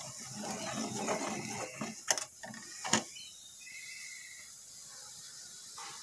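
Steel ladle scraping and clicking against a metal kadai while stirring a yogurt-and-spice masala frying in oil, with two sharp knocks about two and three seconds in. After that the stirring stops and only a faint sizzle is left.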